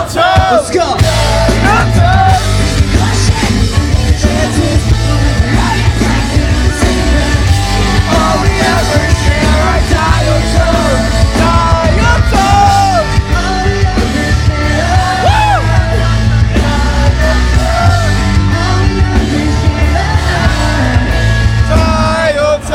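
Live pop-punk band playing loud amplified rock, with a singer's sung and shouted vocals over heavy bass. The heavy low end kicks in about a second in.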